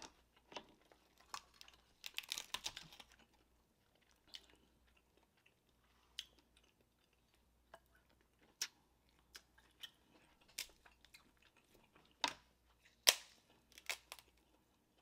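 Close-miked chewing of king crab leg meat, with scattered sharp clicks and cracks of shell being handled. There is a dense run of crunchy clicks about two seconds in and the loudest snaps near the end.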